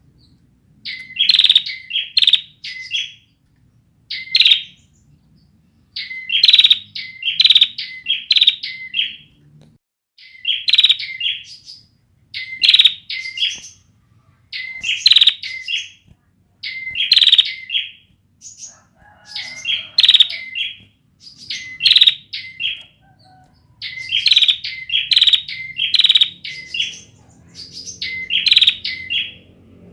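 Ciblek (bar-winged prinia) singing in short bursts of one to four quick, sharp chirps, repeated about every two seconds. It is a young bird whose song is not yet fully formed.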